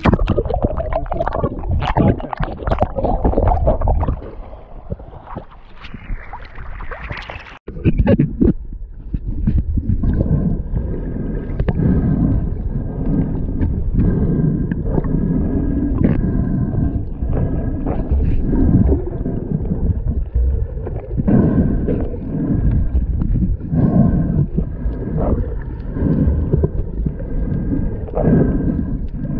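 Seawater splashing and sloshing around a handheld action camera at the surface. About eight seconds in the camera goes under, and the sound becomes the muffled, pulsing underwater rumble and gurgle of the sea, with a faint steady hum.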